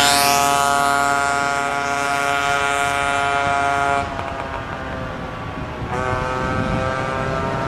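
Ship's horn sounding long blasts: a steady, many-toned blast that cuts off about four seconds in, then another that starts about six seconds in and carries on.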